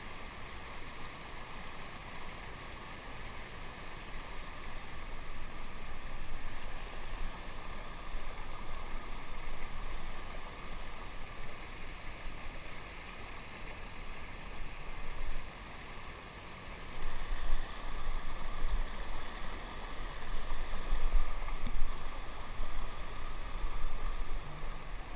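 Tellico River water rushing steadily, with a low rumble on the microphone that grows louder in the second half.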